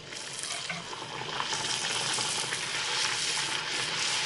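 A disc of urad dal puri dough deep-frying in hot oil in a karahi: the sizzle builds over the first second or two as it goes in, then holds steady with small crackles.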